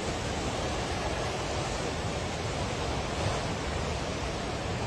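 Steady roar of rushing floodwater.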